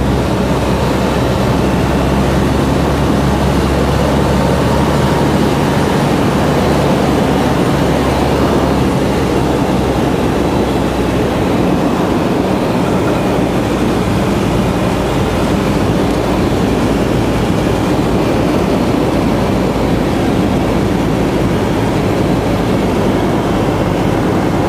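Piper light aircraft's engine and propeller running steadily, heard inside the cabin over the rush of air. It is a loud, continuous drone, and its low hum is somewhat fainter after about ten seconds.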